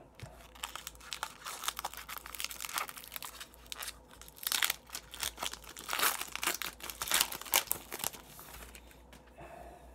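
Shiny foil wrapper of an Upper Deck hockey card pack crinkling and tearing as it is ripped open by hand. The crackles come in irregular bursts, loudest a few seconds in, and die down near the end as the cards come out.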